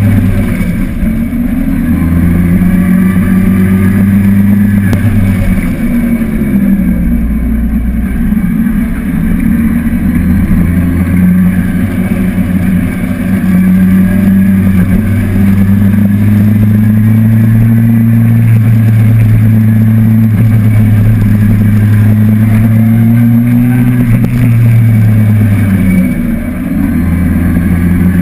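Honda 919's inline-four engine running steadily under way, with wind noise. Its pitch dips briefly about six seconds in and falls away again near the end before picking back up.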